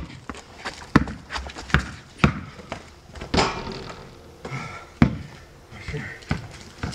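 Basketball bouncing on sport-court tiles: a handful of sharp thuds at irregular intervals as it is dribbled and bounces loose.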